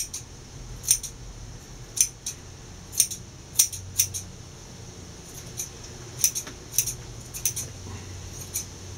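Grooming scissors snipping a curly-coated dog's hair around its head: short, sharp snips at an irregular pace, roughly one to two a second, sometimes in quick pairs, over a steady background hum.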